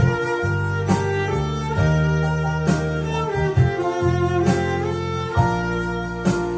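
Cello bowing a slow, gliding melody over sustained chords from a Yamaha electronic keyboard, with a steady beat about once a second.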